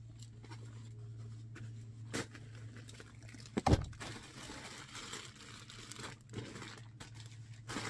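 Plastic garment bags and paper packing slips crinkling and rustling as they are handled, with a sharp knock about three and a half seconds in. A steady low hum runs underneath.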